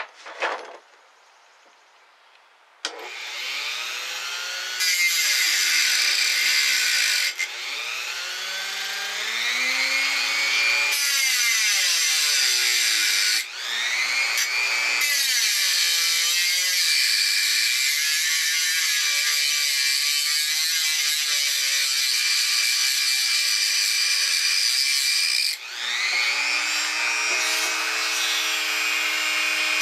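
Dremel rotary tool on a flex shaft with a small abrasive cut-off wheel, cutting metal. Its high whine starts about three seconds in and sags in pitch as the wheel bites, then recovers. It drops off briefly about halfway through and again near the end.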